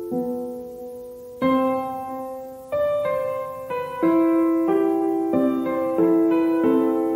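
Slow, gentle background piano music: notes and chords struck roughly once a second and left to ring out.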